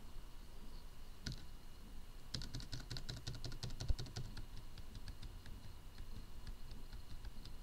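Typing on a computer keyboard: a quick run of key clicks starts about two seconds in and thins out to scattered taps near the end. A faint steady high-pitched tone runs underneath.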